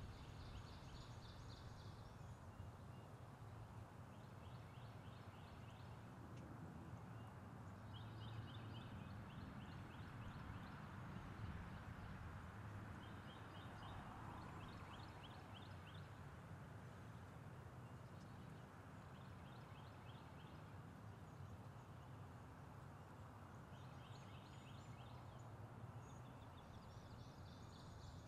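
Faint outdoor ambience with a small bird's quick, dry, high trill that repeats about every three to four seconds, each trill lasting a second or two, over a low steady rumble.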